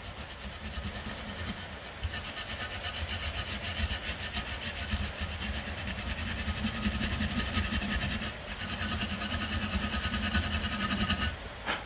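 Hand wire brush scrubbing rust and built-up deposits off the pad-seat surfaces of a VW Golf Mk7's rear brake caliper carrier, in rapid back-and-forth strokes. There are brief pauses about two and eight seconds in. The scrubbing cleans the surfaces so the new pads sit and slide freely.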